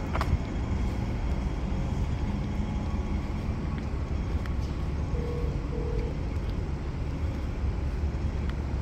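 Steady low rumble of road traffic in outdoor city ambience, with a sharp click just after the start and two short beeps about five seconds in.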